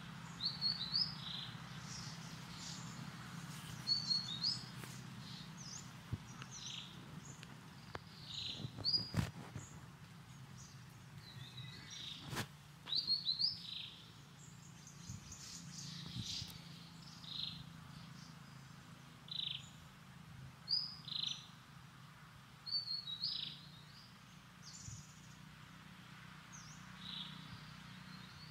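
Small birds chirping: short high calls, often in quick pairs, repeating every second or two over a faint low steady hum.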